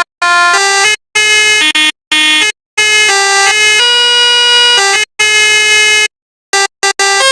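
Telolet multi-tone bus horn playing a melody: bright, buzzy horn notes that step up and down in pitch, broken by short silent gaps, with a longer held chord in the middle.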